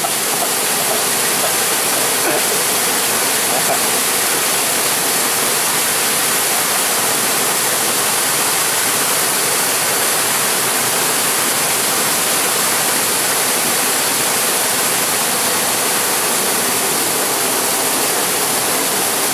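Waterfall pouring into a rock pool, heard from right inside the falling water and spray: a steady, loud rush that does not change.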